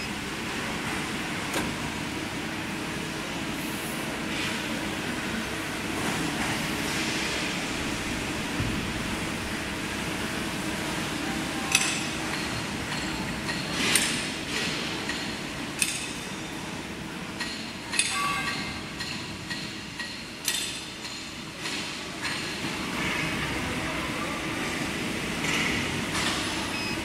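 Steady machine hum of workshop machinery, with a handful of sharp metallic clinks and knocks, mostly in the second half.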